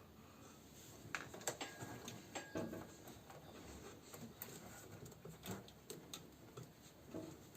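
Light, irregular clicks and taps of hands working on the plastic and metal parts of a washing machine motor, taking out its carbon brush holders; a few louder knocks come between about one and three seconds in.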